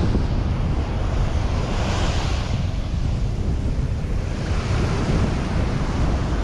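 Wind buffeting the microphone over surf washing onto a sandy beach, with a wave swelling up about two seconds in and another near five seconds.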